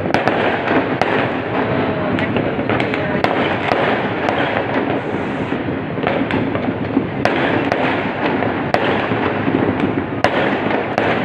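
Many fireworks and firecrackers going off at once across a city: a continuous crackle with sharp cracks and bangs standing out at irregular moments, several a second.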